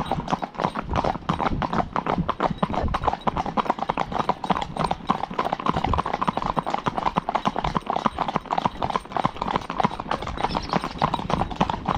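Horses' hooves clip-clopping on a tarmac road, the steps of two horses overlapping in a quick, irregular run of knocks.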